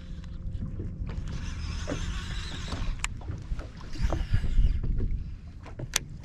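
Small fishing boat sitting in choppy water on a windy day: a low rumble of wind on the microphone and water against the hull, with a stretch of hissing through the middle and a few sharp clicks.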